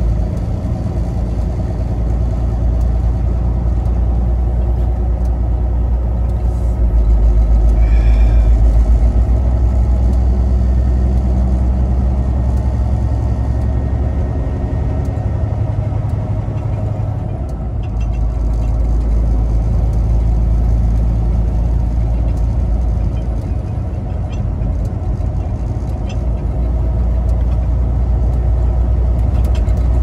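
Heavy truck's engine and road noise droning steadily, heard from inside the cab while driving, a little louder for a few seconds about eight seconds in.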